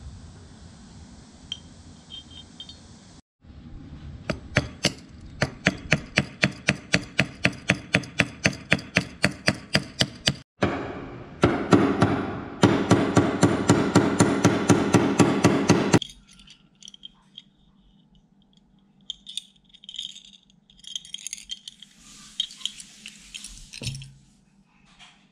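Small hammer tapping steadily on the metal pivot of a brass-handled folding knife held against a bench vise, peening it tight, about three or four sharp taps a second and then a faster run. Afterwards come faint metallic clinks of small parts being handled.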